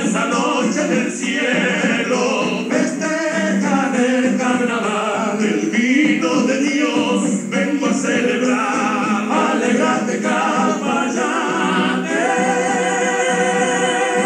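A male vocal group singing a Spanish-language folk song in close harmony, several voices together, holding long notes with vibrato near the end.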